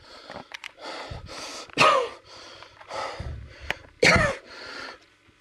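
A man coughing and gasping in pain: a string of ragged breaths, with two loud coughs about two and four seconds in.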